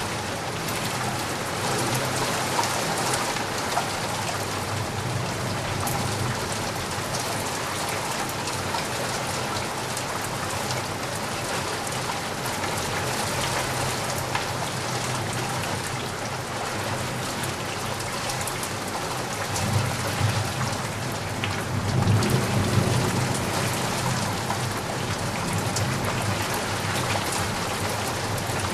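Steady rain, with drops knocking and ticking on a surface outside a window. A low rumble of thunder swells about twenty seconds in.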